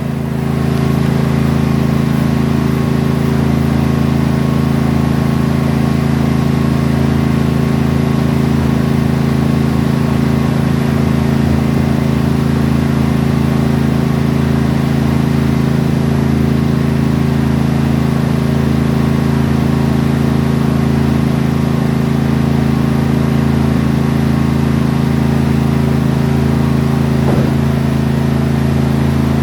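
Toro lawn mower engine running steadily at a constant speed, with an even drone that holds throughout.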